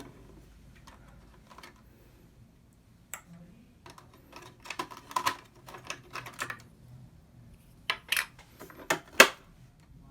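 Irregular clicks and taps of hard plastic parts of a Singer Cosplay sewing machine being handled during setup: a busy run of small clicks in the middle and a few sharper, louder clicks near the end.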